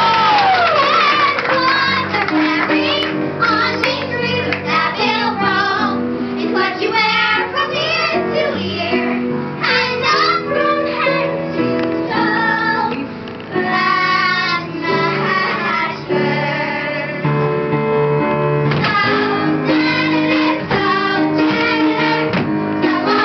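Children singing a musical-theatre song over instrumental accompaniment, with held notes and a continuous melody.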